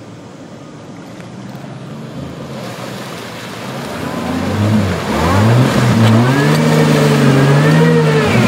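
Jeep Wrangler's engine revving hard as it pushes through deep muddy standing water, its pitch rising and falling as the throttle is worked, over the churn and splash of water and mud from the tyres. Fainter at first, it grows loud about halfway through.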